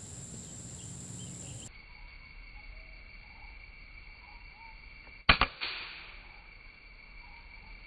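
A single air rifle shot about five seconds in: a sharp crack, a lighter crack a moment after it, and a short fading tail. A steady high insect drone runs underneath.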